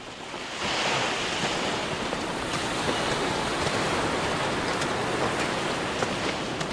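Steady rushing noise with no pitch to it, starting suddenly about half a second in, with a few faint ticks later on.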